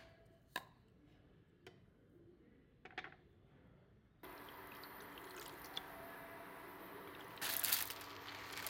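A few sharp taps of jars against the pan, then water poured from a glass bottle into a frying pan from about four seconds in, with a steady hiss. Near the end come crackly bursts of dry noodle pieces pattering into the pan.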